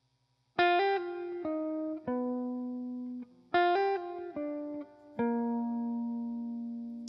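Background music: a guitar plays a short plucked phrase twice, each note ringing on and fading.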